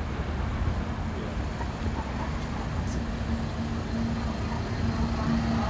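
Road traffic on the street beside a waterfront walkway: cars going by over a continuous low rumble. An engine hum holds a steady note through the second half.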